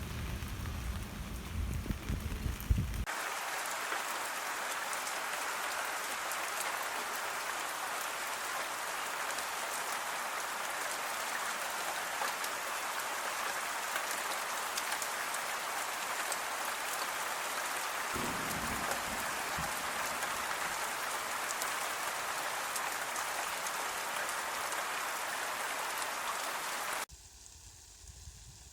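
Steady rain falling: a dense, even hiss with fine pattering drops. About three seconds in it cuts over from a heavier, deeper-sounding rain, there is a brief low rumble around the middle, and near the end the sound drops abruptly to something much quieter.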